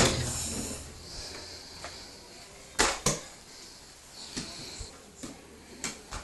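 Flat mop pushed and knocked about on a wet tiled floor: scattered swishes and knocks, the loudest two close together near the middle.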